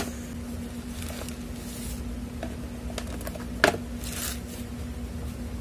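Plastic mailer bag rustling and crinkling as it is opened and handled, with light clicks. A single sharp knock about two-thirds of the way through, a small cardboard box set down on the table. A steady low hum runs underneath.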